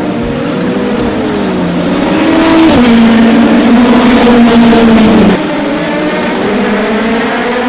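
Formula BMW single-seaters' four-cylinder engines running hard at high revs on track, the engine note gliding up and down with a sudden drop in pitch. The loudest stretch, from about three seconds in, cuts off abruptly a little after five seconds.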